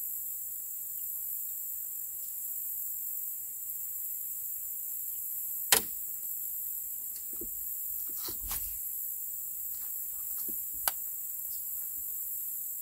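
Steady high-pitched insect chorus. A few sharp clicks and knocks cut through it: a loud one about six seconds in, a small cluster a couple of seconds later, and another sharp one near the end.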